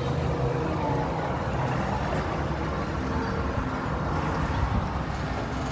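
Outdoor amusement-park ambience: a steady low rumble with faint distant voices.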